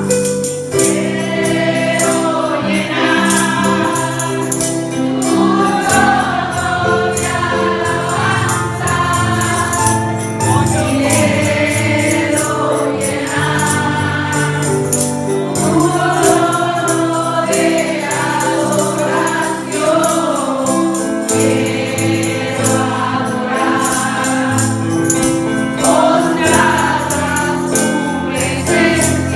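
Group of voices singing a gospel praise song over steady instrumental accompaniment, with a tambourine shaken in rhythm.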